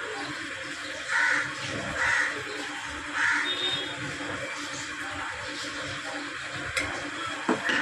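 A bird calling three times, about a second apart, over a steady background hum.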